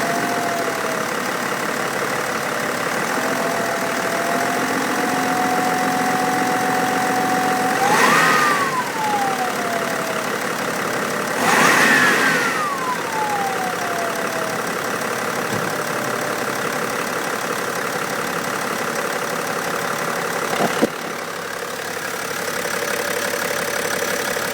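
BMW X5 engine idling with a thin whistle whose pitch follows the revs: it rises sharply with two blips of the throttle, about 8 and 12 seconds in, and glides back down as the revs fall. A single click sounds near the end.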